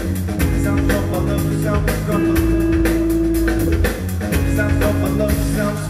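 Rock band playing live: a steady drum kit beat with bass and guitar, and a long held note that sounds twice.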